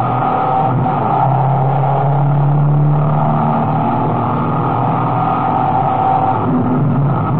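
Dodge touring race car's engine running hard at racing speed, heard from a camera mounted on board, its note holding and then shifting in pitch as the car moves along the circuit.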